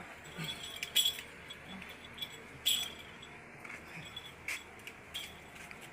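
A few sharp, light clicks and clinks, spaced out irregularly, over a faint steady hiss.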